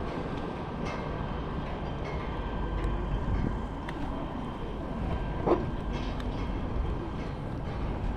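Steady rumble of vehicle and road noise from a ride in progress, with a few faint clicks and a short pitched squeak about five and a half seconds in.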